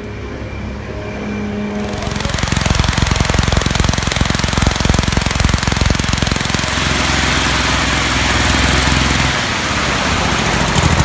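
Large special-effects wind fan being test-run: it builds up over the first couple of seconds, then runs loudly and steadily with a rush of air over a fast mechanical chatter.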